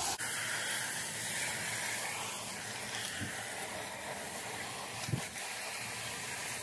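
Water spraying from a garden hose pistol nozzle on a gentle, rain-like low-pressure setting, a steady hiss as it rinses soap foam off a truck's engine bay and front grille.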